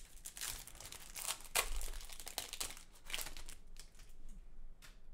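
Foil wrapper of a trading-card pack crinkling as it is pulled open, dying down after about three seconds to a few light clicks.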